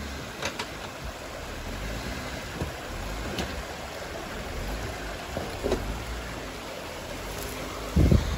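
Off-road SUV engine running low and steady as the vehicle crawls over rough ground, under a steady hiss. There is a short loud knock near the end.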